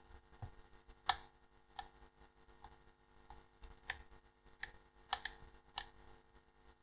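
Light, sharp clicks, about ten in all, irregularly spaced, with the loudest about a second in.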